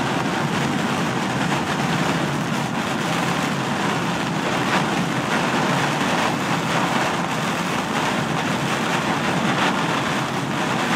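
Heavy rain falling on a moving car, mixed with tyre spray on the flooded road: a loud, steady, dense hiss.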